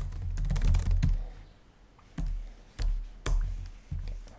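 Typing on a computer keyboard: a fast run of keystrokes for about the first second, then a few separate key clicks with pauses between them, over a low hum.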